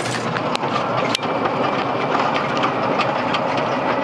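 A vehicle running along a road, heard from on board: steady engine and ride noise with rattling and a few sharp clicks.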